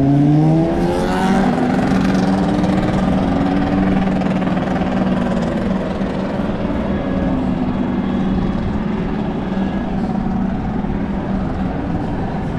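Racing motorcycle engine revving, its pitch climbing steeply over the first second or so, then engines running steadily.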